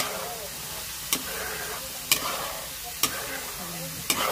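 Coconut milk reducing in a pan for latik, sizzling and bubbling steadily as it nears the point where the oil separates. A spatula strikes the pan about once a second as it is stirred.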